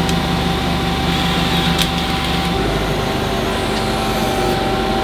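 Steady mechanical hum of machine-shop equipment with a constant tone running through it; the lower part of the hum changes about halfway through, and there is one faint click near the middle.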